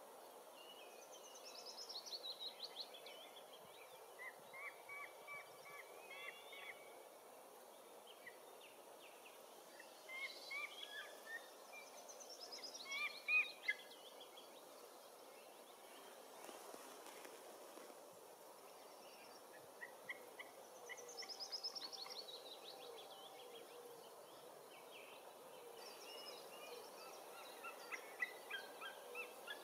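Faint wild birdsong: a short song of quick notes falling in pitch comes again every several seconds, among other short bird calls, over a light outdoor hiss. The loudest calls come about a third of the way in.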